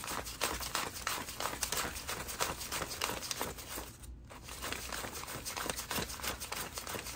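Paper banknotes rustling and flicking as they are counted by hand, a dense run of crisp crackles with a brief pause about four seconds in.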